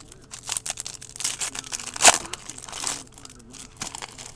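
Foil wrapper of a 2008 Donruss Gridiron Gear football card pack crinkling and tearing as it is ripped open, with a sharp loudest crackle about two seconds in.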